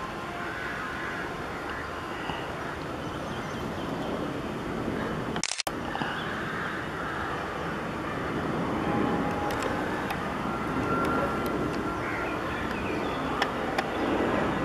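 Airbus A320's IAE V2500 jet engines on landing approach, a steady rushing noise that grows louder in the second half. The sound briefly cuts out about five and a half seconds in.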